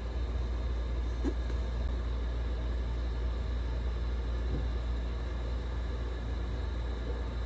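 Steady low rumble, with a few faint, brief rustles from a cardboard box being turned in the hands.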